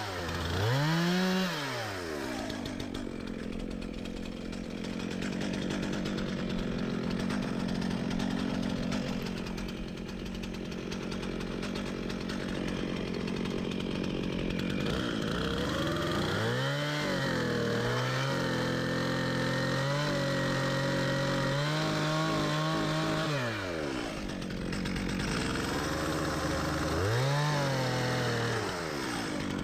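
Chainsaw idling between blips of the throttle. It revs up and drops back about a second in, is held at high revs for about seven seconds while cutting a small tree, and revs up and down once more near the end.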